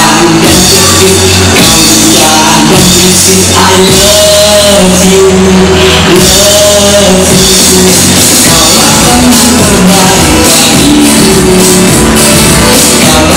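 Loud music with a singing voice.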